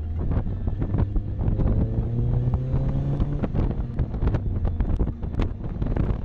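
Wind buffeting the microphone in the open cockpit of a moving 1993 Mazda MX-5 Miata, over the road rumble of the car. About one and a half seconds in, the 1.6-litre four-cylinder engine's note climbs as the car accelerates, then drops away about three and a half seconds in.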